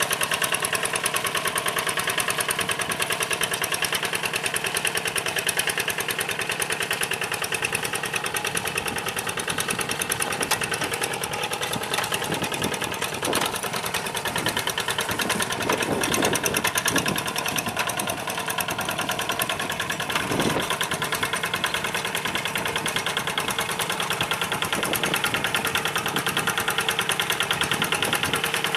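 Diesel engine of a two-wheel hand tractor running steadily under load with a fast, even knocking beat as the tractor pulls through a flooded rice paddy. A few louder thumps come about midway.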